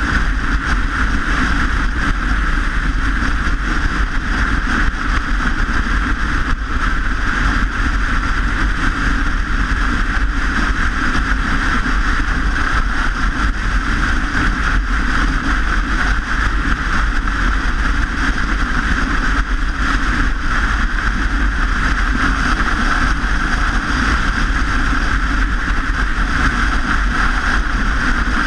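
Steady rush of wind and road noise on a camera carried on a moving bike, loud and unchanging throughout.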